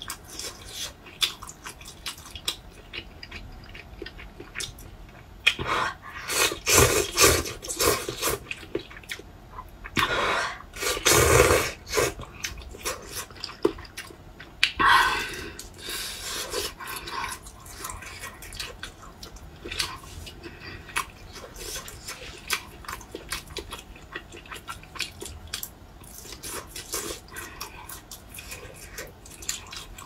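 Close-up wet mouth sounds of eating: chewing, lip-smacking and small clicks, with several louder stretches about six, ten and fifteen seconds in.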